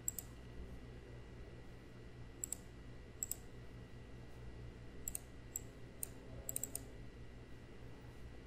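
Computer mouse clicking, about a dozen sharp, light clicks at irregular intervals, some in quick pairs, over a faint steady low hum.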